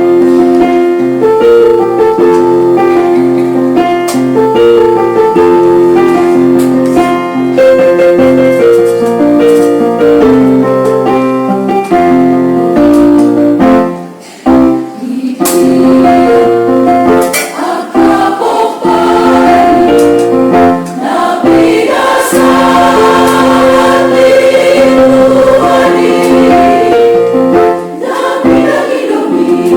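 Women's church choir singing a Batak hymn with electronic keyboard accompaniment. For roughly the first half, steady held keyboard chords dominate. After a brief dip about 14 seconds in, the choir's voices come in fully.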